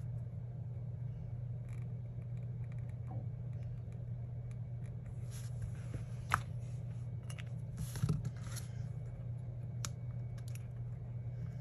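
Craft knife cutting scrapbook paper, with scattered short scratches and sharp clicks, then the cut paper being handled. A steady low hum runs underneath.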